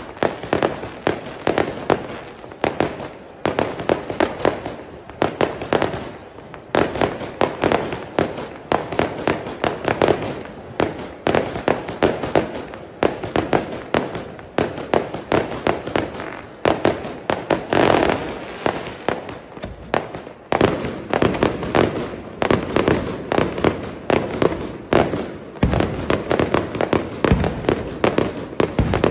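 Aerial fireworks display: a rapid, unbroken run of shell bursts and sharp reports, many a second, with crackling. Deeper booms join in near the end.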